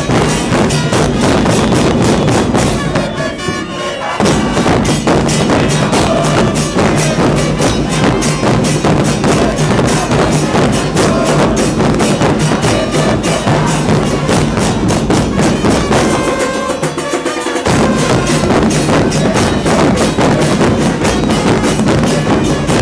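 Football supporters' murga band playing: bass drums and other percussion beating a fast, steady rhythm with other instruments over it. The low drums drop out briefly twice, about three seconds in and again around sixteen seconds.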